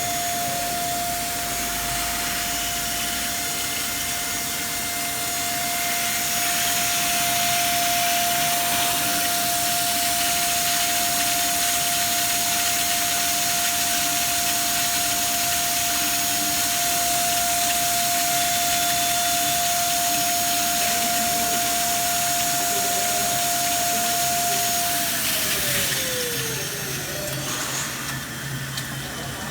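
High-speed electric motor running with a steady whine over a constant hiss of machinery, then spinning down, its pitch falling away, about 25 seconds in.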